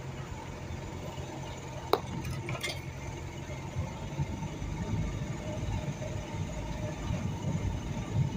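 Suzuki Sidekick's engine running at low speed as the 4x4 crawls along a rough dirt track, a steady low rumble. A sharp click about two seconds in, followed by a brief rattle.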